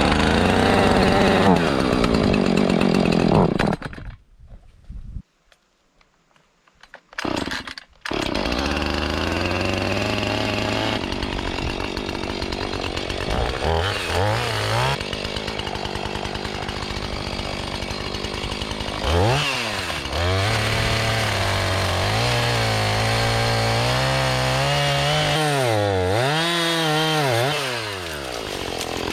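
Chainsaw running while cutting through a tree at the base, its engine pitch rising and falling as it is revved and loaded. The sound drops out for about four seconds near the start.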